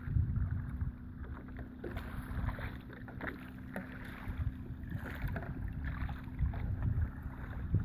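Wind buffeting the microphone in irregular low rumbles over open water, with small splashes and water lapping, under a steady low hum.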